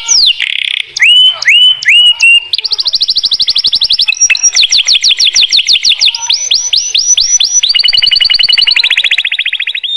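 Domestic canary in full song: a string of quick phrases, each one note repeated fast. It runs through falling whistles and a few curved notes, then a very fast high trill, then a longer run of falling notes about six a second, and a steady rolling trill near the end.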